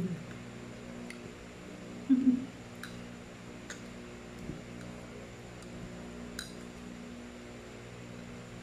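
A few faint clicks of a metal fork and spoon against a ceramic plate while eating, over a steady low electrical hum. A short hum of a voice about two seconds in is the loudest sound.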